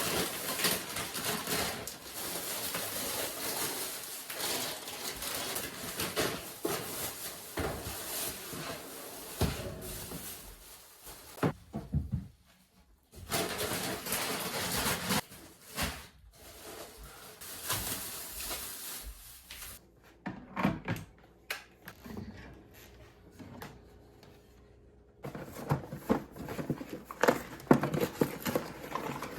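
Groceries being handled and unpacked: bags rustling and items knocking and clattering as they are set down, in several short stretches with abrupt breaks between them.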